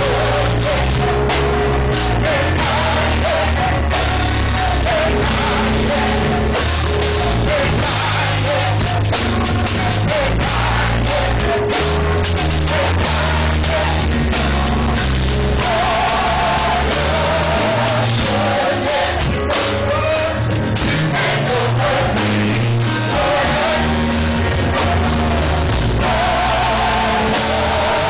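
Youth gospel choir singing together in full voice, backed by a live band with drums and a bass line under the voices.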